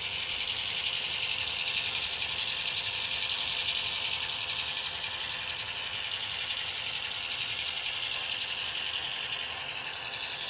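HO scale model locomotive running along the layout track: a steady high whir of its small motor and wheels on the rails, easing slightly near the end.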